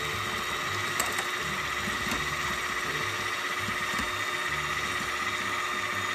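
KitchenAid electric hand mixer running steadily on high, its beaters whipping heavy cream in a ceramic bowl, with a steady whine. A couple of sharp clicks come about a second in.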